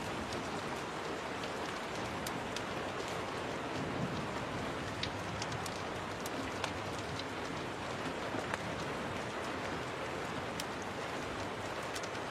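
Steady rain, mixed with scattered sharp pops of a crackling fire.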